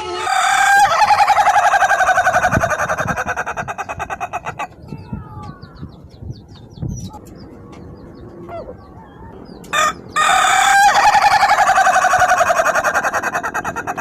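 Ayam ketawa (Indonesian laughing rooster) crowing twice, each crow a long run of rapid staccato notes that sounds like laughter and lasts about four seconds, the notes spacing out toward its end. A short, sharp burst of sound comes just before the second crow.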